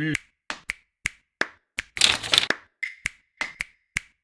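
A quick series of about a dozen sharp taps and clicks on hard objects, uneven in spacing, with a short noisy clatter about two seconds in.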